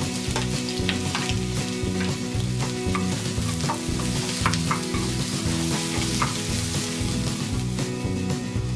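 Sliced onions sizzling in hot oil in a nonstick wok. A wooden spatula stirs them, with short scrapes and knocks now and then.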